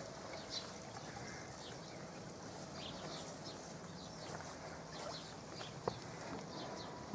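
Water trickling and splashing into a garden koi pond, a faint steady wash, with small birds chirping now and then. A single sharp click about six seconds in.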